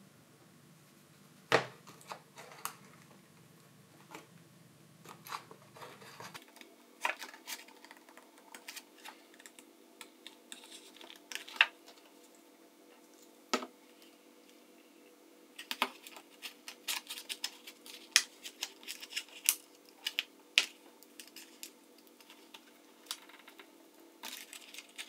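Scattered, irregular clicks and taps of a plastic prying card and the phone being handled. The card is being worked under a smartphone battery to cut the adhesive holding it in. The taps come more thickly in the second half.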